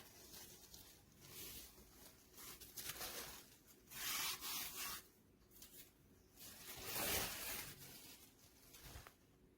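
Rustling and rubbing, as of material being handled, in four bursts; the loudest come about four and seven seconds in.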